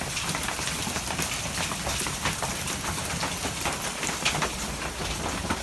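Hail and rain coming down hard: a steady rushing hiss with many sharp ticks of hailstones striking surfaces.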